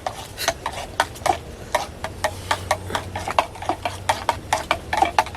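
A spoon stirring instant coffee in a cup, clinking against the side about three times a second, over a steady low hum.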